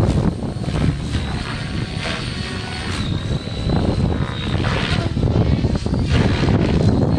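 Large electric radio-controlled helicopter (a 700E) flying: a steady high motor-and-rotor whine that wavers slightly, under heavy buffeting of strong wind on the microphone.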